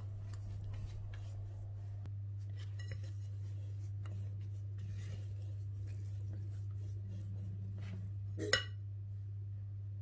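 Silicone spatula stirring and scraping thick chocolate-chip cookie dough around a bowl, with soft irregular scrapes over a steady low hum. One sharp knock of the spatula against the bowl about eight and a half seconds in.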